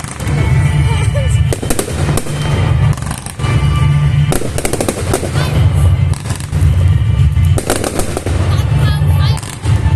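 Fireworks going off in quick succession: many sharp bangs and crackles over a deep rumble, with music playing underneath.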